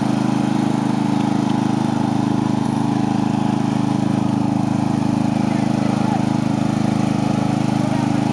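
Riding lawn mower engine running steadily at an even speed, a constant hum.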